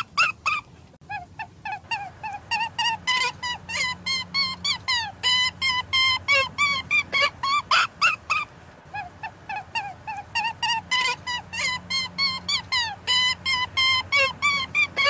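An animal calling in a rapid, steady series of short high-pitched notes, about four a second, with a brief pause about a second in and a softer stretch near the middle.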